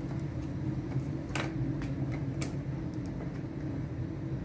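Two sharp clicks, about one and a half and two and a half seconds in, with a few fainter ticks between them, as the clips of a Samsung screen panel's frame are worked at by hand. A steady low hum runs underneath.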